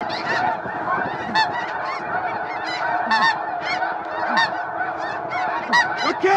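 A large flock of snow geese calling overhead: a dense, continuous chorus of many overlapping honks.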